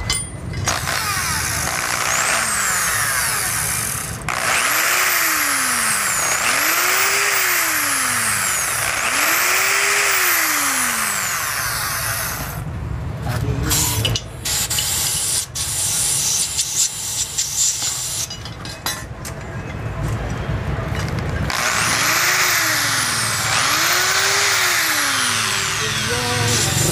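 Electric drill drilling out a stripped carburetor air screw with a slightly larger bit. The motor pitch rises and falls again and again as it is run in spurts, with a stretch of clicking and scraping in the middle.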